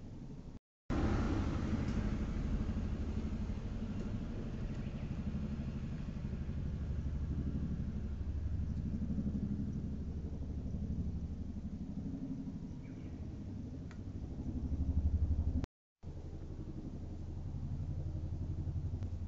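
Helicopter flying over: a steady low rotor rumble that swells about fifteen seconds in. The sound cuts out completely for a moment twice.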